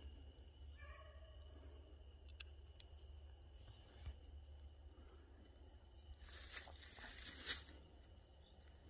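Near silence in dry woods with a faint steady high tone. Near the end come a few seconds of footsteps crunching on dry pine straw.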